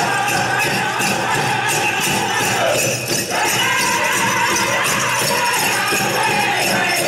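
Powwow drum group singing over a steady pounding beat on a large bass drum, with the dancer's bells jingling in time. The singers' line slides down in pitch about three seconds in, with a brief break.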